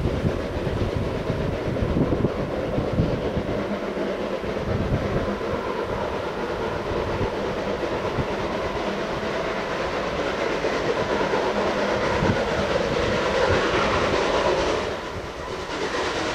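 Steam locomotive running along the line and approaching, still out of sight, with a steady rumble and rail clatter that dips briefly near the end.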